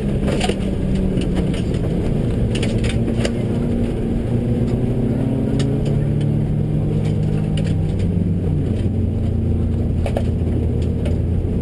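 Subaru rally car heard from inside the cabin at speed on a gravel stage, with two passes mixed together: the engine runs hard, its note shifting with throttle and gears and dropping about eight seconds in. Scattered sharp clicks and knocks from the gravel road against the car.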